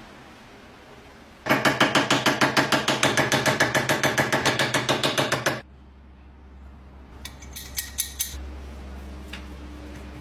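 Rapid rhythmic metallic scraping, about seven strokes a second, lasting about four seconds, as a metal part of a rusty lock is worked on. It is followed by a few sharp clicks and a low hum.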